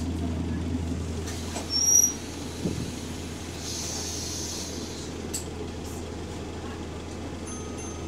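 The steady low running hum of a bus, heard from inside, with one short high-pitched squeal about two seconds in from the rear door hinges. A brief hiss follows around four seconds in.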